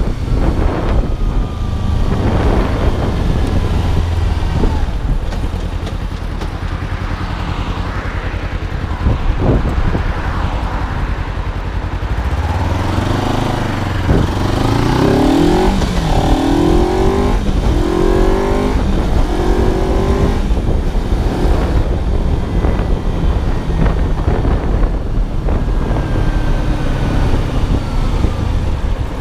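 Kawasaki 250 cc parallel-twin motorcycle engine running under way. About halfway through it pulls hard through several gears, its pitch rising and dropping back with each upshift, then settles back to steady cruising.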